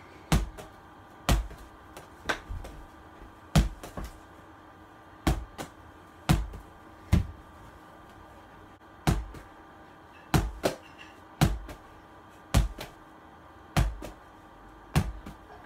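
A ball thrown against a wall again and again: sharp thuds every second or so, many of them in quick pairs.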